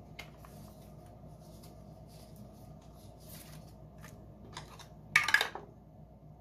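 Scratch-off card being scratched, a series of short, faint scraping strokes over a soft mat, with one louder scrape about five seconds in.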